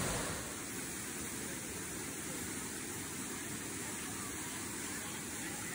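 Steady rushing of a rocky mountain creek, an even noise with no separate events.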